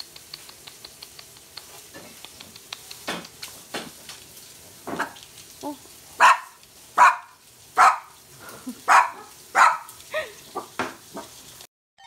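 Small white dog barking about ten times in a row, roughly one bark every second, loudest in the middle of the run; before the barks, faint light clicking.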